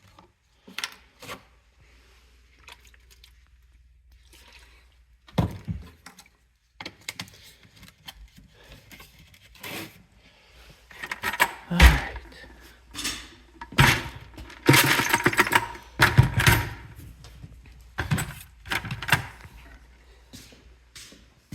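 Feed and containers being handled: scattered knocks, rattles and rustling, with a busy stretch of clattering past the middle.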